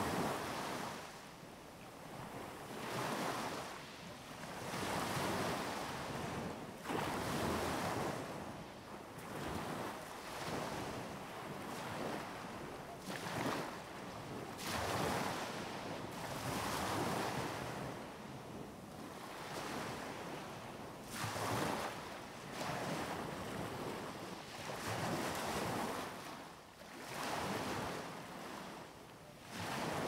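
Small sea waves breaking and washing up on a beach at the water's edge, a fresh surge of surf swelling and fading about every two seconds.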